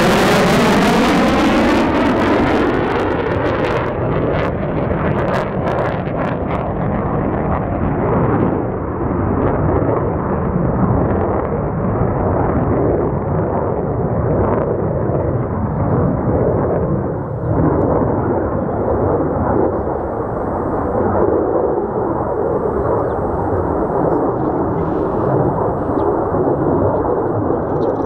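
Loud jet roar from the two J79 turbojets of an F-4EJ Phantom II. A sweeping whoosh in the first couple of seconds gives way to a deep rumble with crackling, and the high end drops away after a few seconds.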